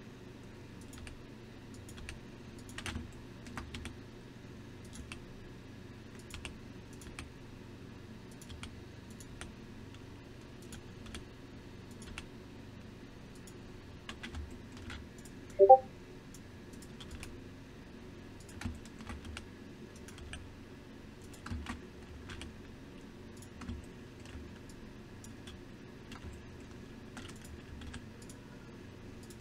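Computer keyboard keys and mouse buttons clicking irregularly, in single clicks and short runs, over a faint steady low hum. About halfway through, a short, loud tone steps upward in pitch.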